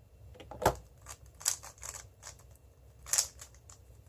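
Moyu WeiLong GTS2M speedcube being handled and turned: a few scattered, irregular plastic clicks.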